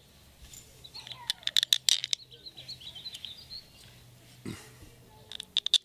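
Small birds chirping and twittering, with a scatter of sharp clicks that come in a loud cluster about a second and a half in and again near the end.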